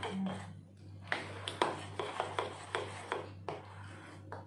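A spoon stirring thick cake batter in a glass bowl, scraping and clicking against the side about twice a second.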